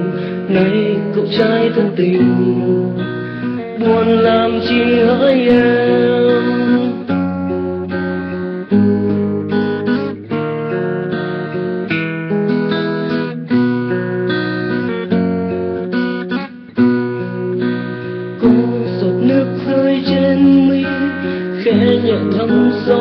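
Background music: acoustic guitar chords over a bass line that changes every second or so.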